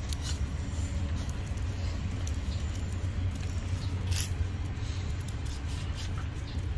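Patterdale terriers' claws tapping and scuffling on concrete as they wrestle in play: scattered light clicks, the sharpest about four seconds in, over a steady low rumble.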